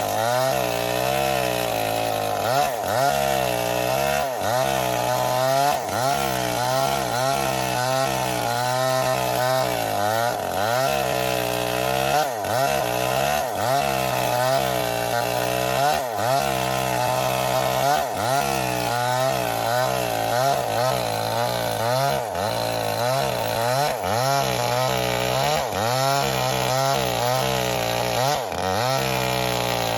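Small stationary diesel engine running, with a steady low note under a higher sound whose pitch keeps rising and falling over and over.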